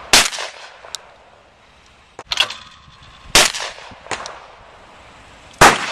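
12-gauge shotgun firing at clay pigeons: three sharp, loud shots, the last and loudest near the end, with a softer bang between the first two.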